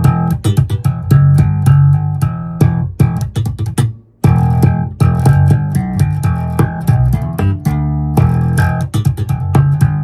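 Electric bass guitar played slap-style on a bright, treble-boosted tone setting: quick runs of slapped and popped notes with sharp, clicky attacks. The playing breaks off briefly about four seconds in, then starts again.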